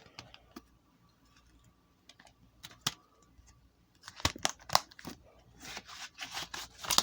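Clicks and rustling of a DVD/Blu-ray box set's packaging being handled. There are a few scattered snaps at first, then from about four seconds in a busier run of clicks and crinkling.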